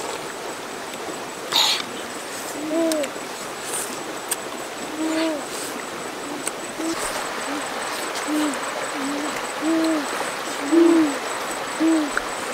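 A bird's low hooting calls, short single hoots repeated about a dozen times at uneven intervals, over a steady rush of stream water.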